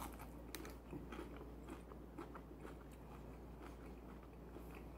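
A person chewing a breaded fried chicken strip close to the microphone: faint, irregular mouth clicks and crunches.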